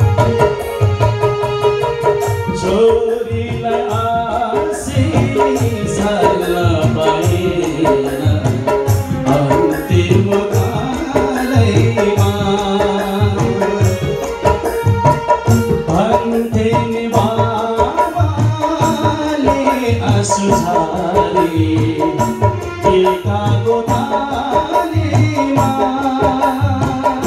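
Live band playing a Nepali song: a hand drum beating a steady rhythm under a Casio electronic keyboard melody, with a man singing into a microphone near the end.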